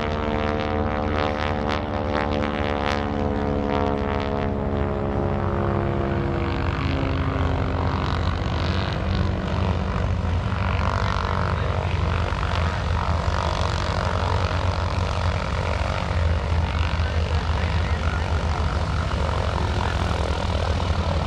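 North American SNJ-6 Texan's Pratt & Whitney R-1340 Wasp radial engine and propeller droning through an aerobatic routine. The pitch falls over the first five or six seconds, then the drone runs steadily.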